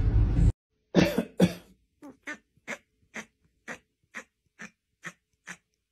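A series of short cough-like hacks, about two a second, the first two loudest and the rest fading away. The series is preceded by a brief low rumble that cuts off half a second in.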